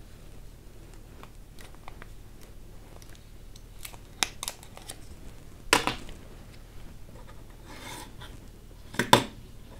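Hands handling the plastic parts of an mSATA drive enclosure: scattered small clicks and rustles, with two louder knocks about halfway through and near the end.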